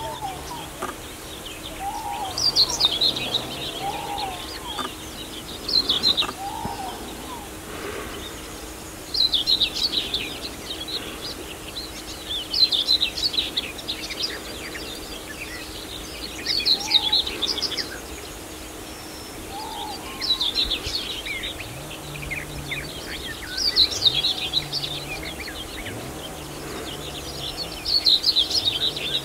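Songbird singing a short, rapid, high song phrase every three to four seconds, with softer bird calls between the phrases.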